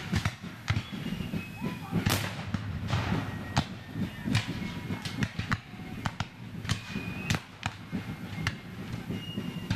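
Reenactors' black-powder gunfire: an irregular crackle of distant shots, several a second, with a few sharper, closer reports, the sharpest about two seconds in.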